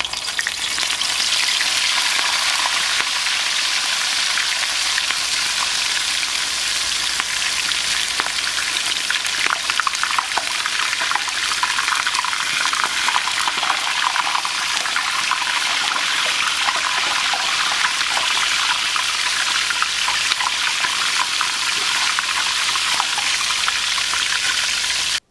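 Whole mangrove snapper sizzling and crackling in a pan of hot oil just after being dropped in. The sizzle swells over the first second, holds steady with constant fine crackles, then cuts off suddenly.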